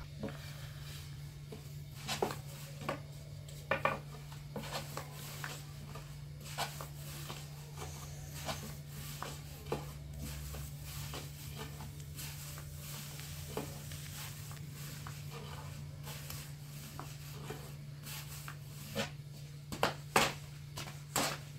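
Scattered knocks and clinks of pots, pans and utensils being handled, busiest near the end, over a steady low hum.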